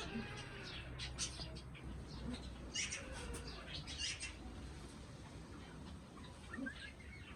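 Pet parrot giving short, scattered chirps and calls, roughly a second apart, over a faint steady low hum.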